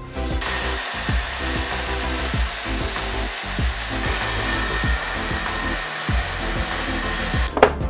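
Festool plunge track saw running along its guide rail and cutting through a butcher-block countertop. It starts about half a second in and stops shortly before the end. Background music with a deep bass beat plays underneath.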